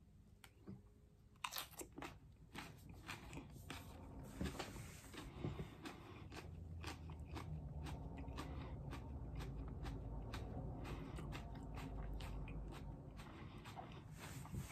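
Faint sound of a man biting and chewing a raw Naga Viper chili pepper: crisp crunches and wet clicks start about a second and a half in, densest for the next few seconds, then settle into softer, steadier chewing.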